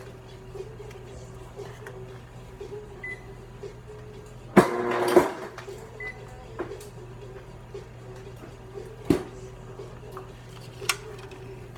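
Steady hum of a running kitchen appliance, holding one constant tone. A loud, sudden noise lasting under a second breaks in about four and a half seconds in, and there are single sharp knocks later.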